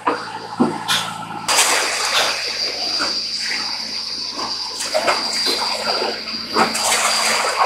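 Cloudy, sandy well water gushing out of a PVC discharge pipe and splashing into a steel settling tank as a newly drilled well is developed. The rush starts about a second and a half in, after a few light knocks, and carries a thin, steady high whine behind it.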